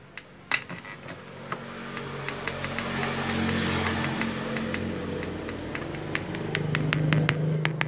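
Two bare speakers driven by a salvaged Polytron compo power amplifier turned up with no source plugged in. They give a steady low hum with a swell of hiss and scattered crackling clicks, which grow louder over the first few seconds. This is the 'cedok-cedok' noise that the builder thinks is signal picked up from his hand holding the input wire.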